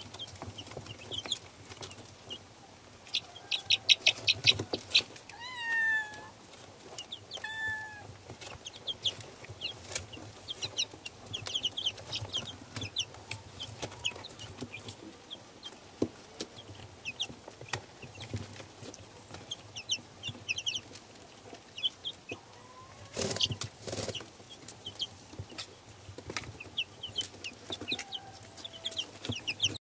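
A flock of 20-day-old Leghorn Exchequer chicks peeping constantly in many short high chirps, with a few longer falling calls around six and eight seconds in. Sharp little taps run through it as the chicks peck at their feed.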